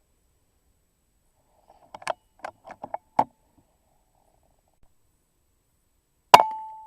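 A few faint clicks and scuffs, then one sharp airgun shot near the end, followed by a brief ringing tone.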